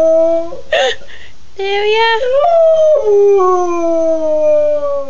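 A beagle howling. One long howl ends about half a second in, then after a short break a second long howl slowly falls in pitch.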